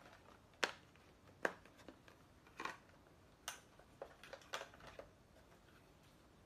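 Cardboard product box being handled and turned over: a string of short, sharp taps and clicks at irregular intervals, the first one, under a second in, the loudest.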